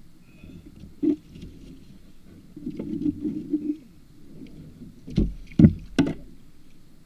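Knocks and bumps on a kayak's hull as it is jostled by someone handling a rod: a sharp thump about a second in, a scuffling rumble around three seconds, and three loud knocks in quick succession near the end.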